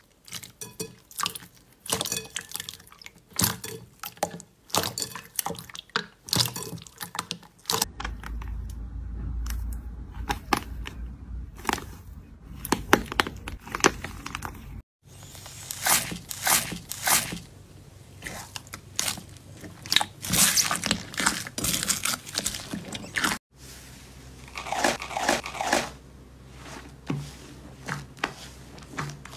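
Slime being squished and poked: quick runs of wet clicks and pops, in several short clips cut one after another.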